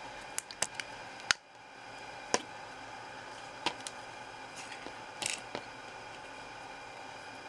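Sharp clicks and taps of small plastic and metal parts being handled and pressed together as the trigger assembly of a gas blowback airsoft rifle is reassembled and the selector is seated against its bearing. There are about nine clicks, the loudest about a second in, and a short scrape a little after five seconds, over a steady hiss.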